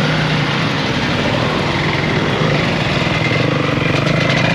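Off-road enduro motorcycle engine running steadily.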